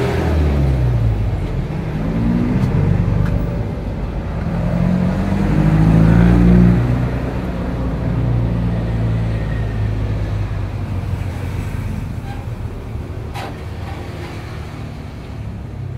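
A nearby engine running, its pitch rising and falling as it revs, loudest about six seconds in and then slowly fading.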